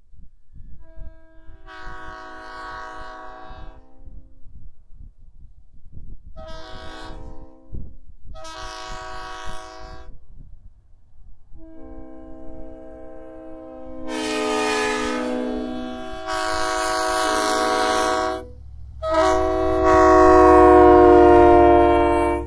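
Multi-chime locomotive air horns sounding a series of blasts, each a chord of several steady notes: three shorter blasts, then a long blast that grows louder and shifts chord partway through, then a final long blast, the loudest.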